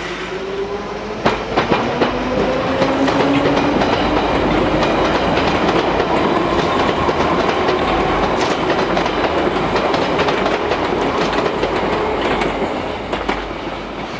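Class 305 electric multiple unit running at the platform, its wheels clattering over rail joints with many short clicks. A motor whine rises over the first few seconds, then bends up and down.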